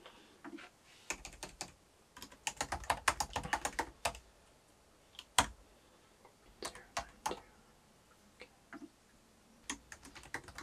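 Typing on a laptop keyboard: short bursts of quick keystrokes separated by pauses, with one sharper, louder key press about halfway through.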